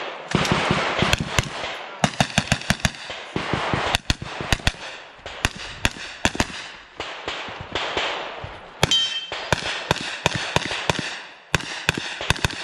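Rapid gunfire from a pistol-caliber carbine, in quick pairs and fast strings of shots with short breaks between strings.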